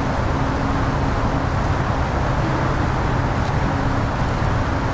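Steady low rumble and hiss of outdoor background noise, unchanging throughout, with no distinct events.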